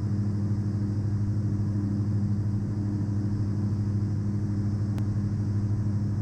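Diamond DA40 NG's Austro AE300 turbo-diesel engine and propeller droning steadily in cruise flight, with a faint click about five seconds in.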